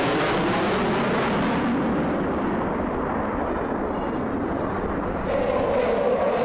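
Jet noise from an F-22 Raptor's twin turbofan engines: a continuous roar whose high hiss fades after about two seconds, then grows louder again about five seconds in with a steady droning tone.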